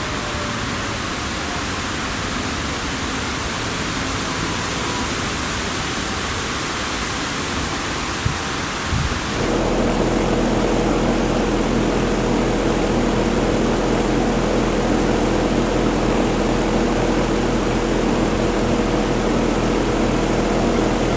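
Steady hiss with a distant outdoor warning siren winding down, its pitch falling, at the start, and a single knock about eight seconds in. About nine seconds in the sound changes suddenly to a steady low drone made of several held tones.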